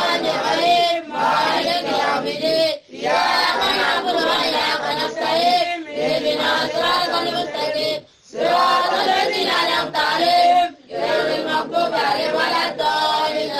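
A group of voices chanting in unison in about five phrases of two to three seconds each, with brief breaks between them.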